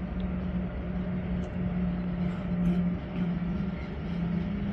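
Electric freight train of tank wagons rolling slowly past: a steady low hum over the rumble of wheels on rail.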